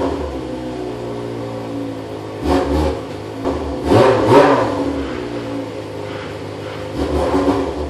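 Suzuki GS250FW's 250 cc inline-four idling between rhythmic throttle blips, a bōsōzoku-style 'call': a couple of quick revs about two and a half seconds in, a bigger double rev around four seconds, and another burst of revving near the end.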